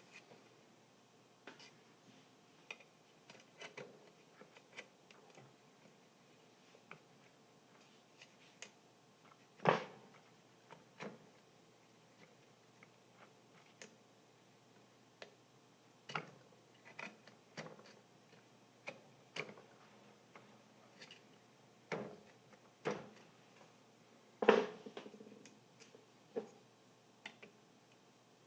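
Scattered light clicks and taps of hands and small tools working on an old home theater speaker during a foam-surround repair. Two louder knocks come about ten seconds in and again a few seconds before the end.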